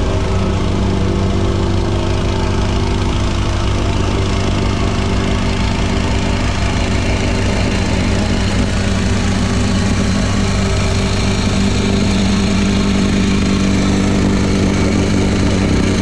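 Engine of compact construction equipment running steadily, with a slight shift in pitch now and then.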